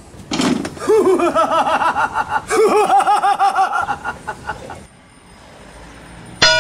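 A man laughing loudly in a run of rapid 'ha-ha' bursts, about one to four seconds in. Right at the end a wobbling cartoon 'boing' sound effect starts.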